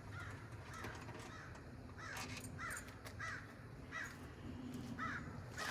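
Crows cawing, a run of short harsh caws coming thick from about two seconds in, with a few faint clicks.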